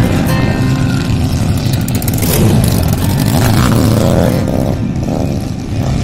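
Dirt bike engines racing, revving up and down in pitch about halfway through as a bike comes up the track.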